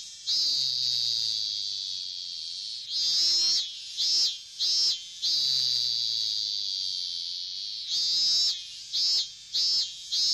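Cicadas singing: a high-pitched buzz that comes as a run of three short buzzes, then one long drawn-out buzz that slowly fades. The pattern repeats about every five seconds.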